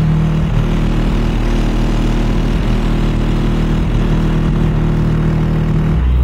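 Bass-heavy hip-hop music played loud through a car audio system's Alpine Type R 12-inch subwoofer in a T-line enclosure, with a steady deep bass line. The very lowest bass thins out shortly after the start and comes back strong near the end.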